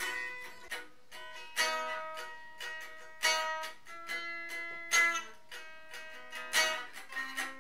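Guitar played slowly: single notes and chords are plucked a little more than once a second and left to ring out.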